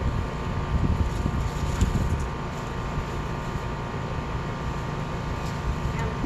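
Wind buffeting the microphone: a steady low rumble that rises and falls a little, with a faint steady hum behind it.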